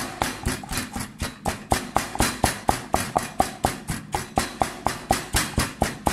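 Steady rhythmic knocking, about four sharp knocks a second, each with a short ring.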